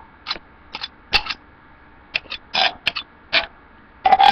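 A table knife scraping jelly onto toast in a series of short, irregular scratchy strokes, with a cluster of strokes near the end.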